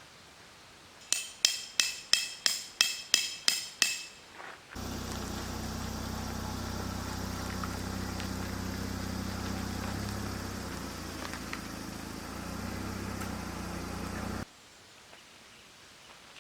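Nine sharp metallic hammer blows with a ringing tone, about three a second. Then a steady low machine hum starts abruptly, runs about ten seconds and cuts off suddenly.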